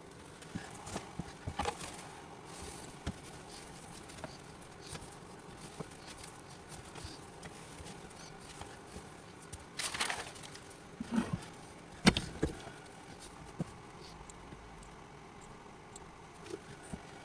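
Scattered light taps, clicks and rustles of materials being handled at a workbench, with a short cluster of louder knocks about ten seconds in and one sharp knock about twelve seconds in.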